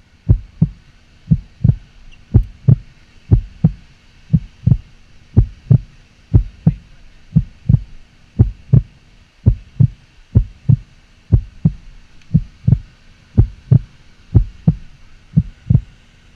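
Steady low thumps in close pairs, about one pair a second, like a heartbeat.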